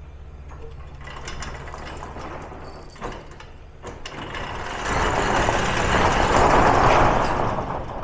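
Corrugated steel roll-up shop door being pulled down, its slats rattling and rumbling as it rolls. It grows louder toward the end, with a couple of knocks about three seconds in.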